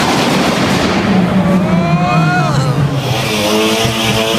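Car engines revving as cars drive through a road tunnel, with a brief tyre squeal about two seconds in; from about three seconds in an engine note holds steady.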